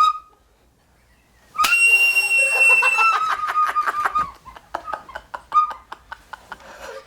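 A wind instrument held in the mouth gives out squeaky blasts as the player gasps under the pain of being hit. There is a short note at the start, then a long high note from about a second and a half in, then a quick stuttering run of notes and scattered short squeaks.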